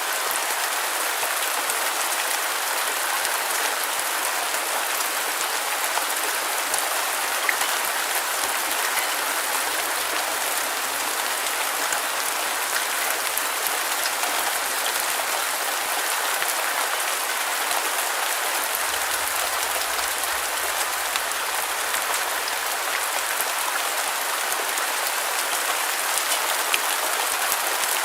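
Steady rain: an even, unbroken hiss of falling rain with a dense patter of fine drop ticks, bright and thin with little low rumble.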